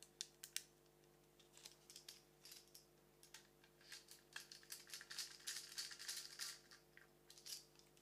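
Faint scattered clicks, taps and light rattling from small parts being handled: a screwdriver and a metal laptop hard-drive caddy. The clicks come thickest from about halfway through to near the end.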